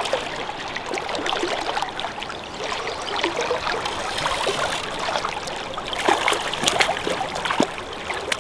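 Creek water running and rippling steadily, with a run of sharper splashes from about six seconds in as a hooked brown trout is drawn in close.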